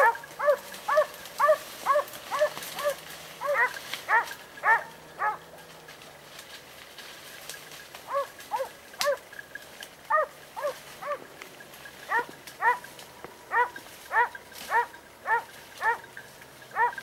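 Hunting hounds baying in quick, repeated yelping barks, two or three a second, in bouts with a short lull about a third of the way in, as hounds give tongue while working a wild boar hunt.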